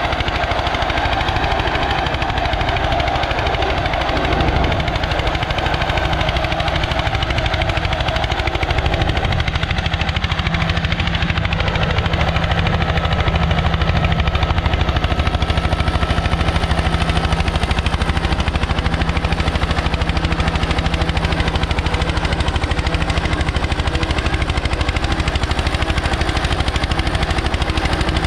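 Eicher 241 tractor's single-cylinder air-cooled diesel engine running steadily under load with a fast, even beat, pulling a tined cultivator through the soil.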